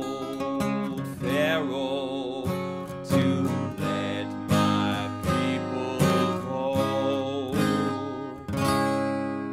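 Acoustic guitar strummed in a steady rhythm, with a man's voice singing along over it. A final strum near the end is left to ring out and fade, closing the song.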